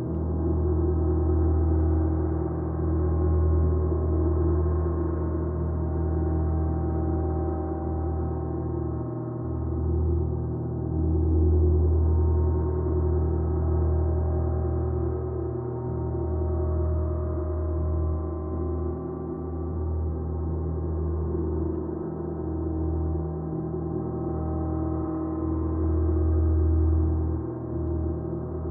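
Gongs ringing in a continuous wash of many sustained overlapping tones over a deep low hum, with no distinct strikes. The ringing swells and ebbs slowly, loudest about a dozen seconds in and again near the end.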